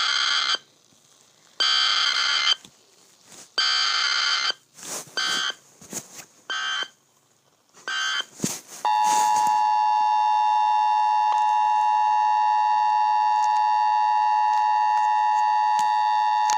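Emergency Alert System alert: three screeching data bursts of the SAME header, each about a second long, then a few short scattered noises, then the steady two-tone attention signal sounding for about eight seconds.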